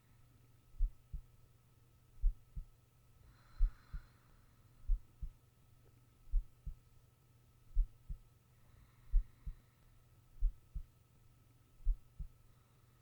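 A sleeping person's heartbeat picked up close: a lub-dub pair of low thumps about every 1.4 seconds. Soft slow breaths come in about every five seconds over a faint steady whine.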